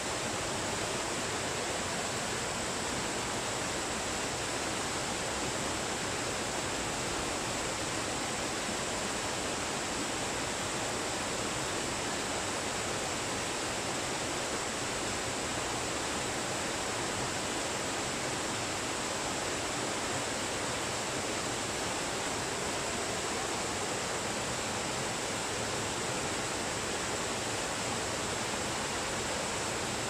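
A waterfall pouring in a steady, unbroken rush of falling and splashing water.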